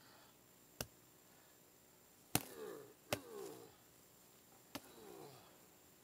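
Hatchet chopping through wood roots at the base of a stump: four sharp chops spread unevenly over a few seconds, the second the loudest.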